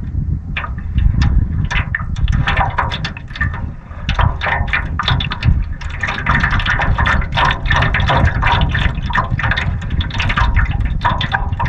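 Small waves slapping and splashing against a canoe's hull in quick, irregular splashes, over a heavy low rumble of wind on the microphone.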